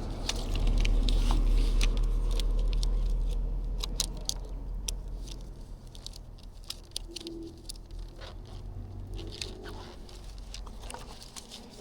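Handling noise of a 1.5-litre plastic bottle being worked into a bike bottle holder: scattered clicks, scrapes and crackles of plastic on plastic. A low rumble sits under the first few seconds and then fades.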